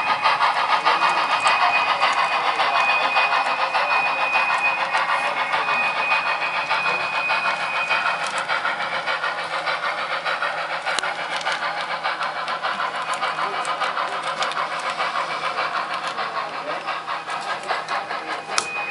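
Sound-equipped model steam locomotive running, its chuffing pulsing quickly and evenly through a small speaker, with a thin high steady tone that comes and goes.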